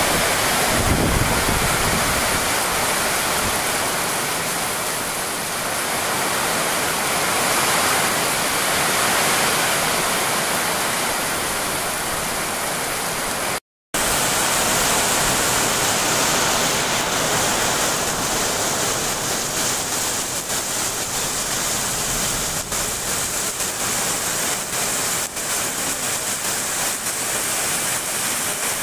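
Heavy rain pouring down steadily, a dense even hiss of falling water. It cuts out for a moment about 14 seconds in, then carries on.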